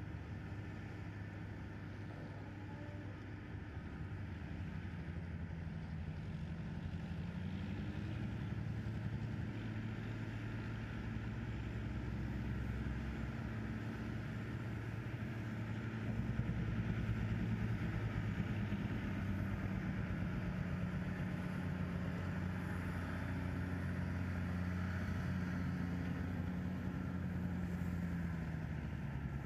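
A low, rumbling drone of long held pitches that shift every few seconds, swelling louder about halfway through.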